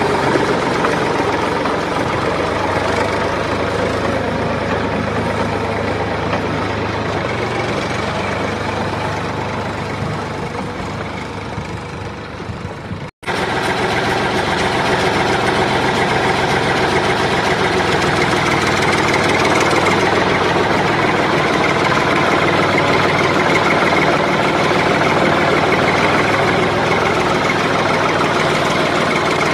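Engine of a homemade mini tractor running steadily, softening slightly for a few seconds before a sudden brief dropout about halfway through, then running on steadily.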